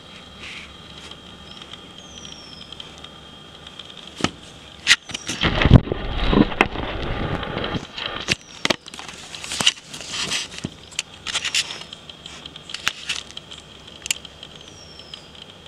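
Loud crackling, rustling and sharp clicks, heaviest about five to seven seconds in with a low rumble, over a steady high-pitched drone. A bird gives a short falling whistle three times.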